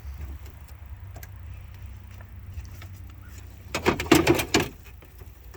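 Rattling and knocking of parts being handled inside a truck door, in a burst of about a second near the end, over a low steady hum.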